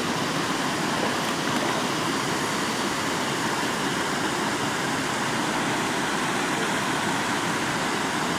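Steady rush of running water feeding a trout pond.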